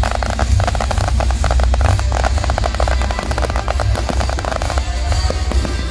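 Fireworks display: a dense run of rapid crackles and pops over a low rumble, thinning out near the end.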